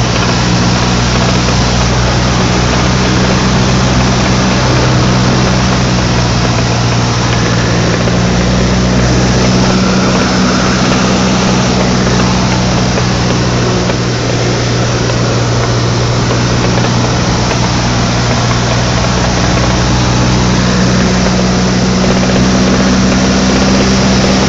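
Cessna 152's Lycoming O-235 four-cylinder engine and propeller droning steadily in cruise flight, heard from inside the cockpit with a rush of air noise, the pitch holding constant.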